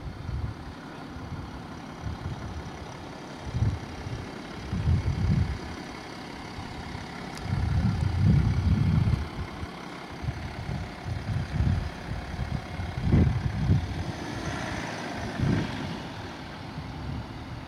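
BMW 730d's straight-six diesel engine running quietly as the car pulls slowly past and away, under irregular gusts of wind buffeting the microphone.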